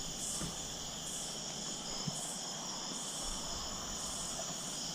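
Chorus of crickets and other insects: a steady high trill, with another insect calling in even pulses about once a second.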